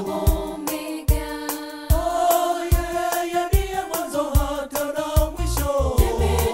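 Mixed gospel choir singing in harmony over a steady beat of about two strokes a second; a deep bass line comes in about five seconds in.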